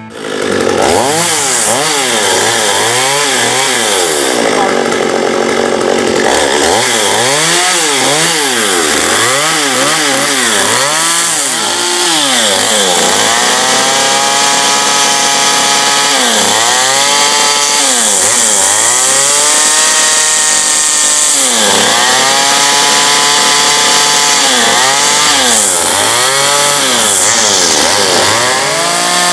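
Gas chainsaw cutting wood, its engine revving up and dropping back about once a second, then held at high revs for longer stretches with brief drops.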